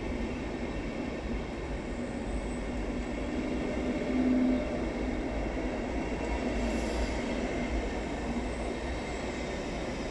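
Passenger coaches of a departing train rolling past, a steady rumble of wheels on rail echoing in an enclosed station hall. About four seconds in, a brief louder tone rises over the rumble.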